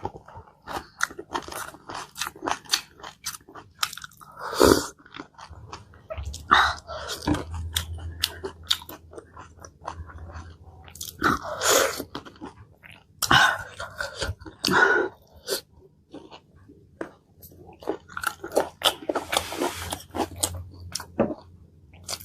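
Close-miked eating: a person chewing and biting food, with many small wet mouth clicks and a louder bite or crunch every few seconds.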